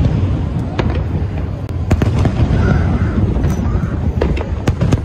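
Aerial fireworks shells bursting in a dense barrage: repeated sharp bangs over a continuous low rumble, with several bangs coming close together near the end.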